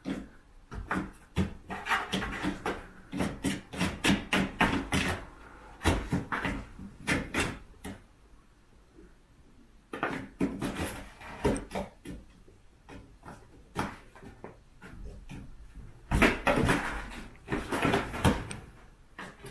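Bengal kittens playing with a box: repeated light knocks, taps and scratchy rustling of paws and bodies against the box, coming in busy bursts with quieter stretches between.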